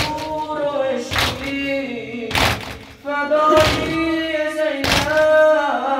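A male reciter chanting a noha over a microphone, with a group of men beating their chests (matam) in unison: a sharp thud about every 1.2 seconds, five beats in all.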